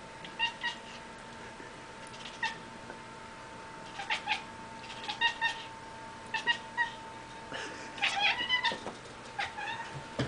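Domestic cat making short chirping meows in quick groups of two or three: the excited chirp of a cat watching prey it can't reach, here a moth overhead.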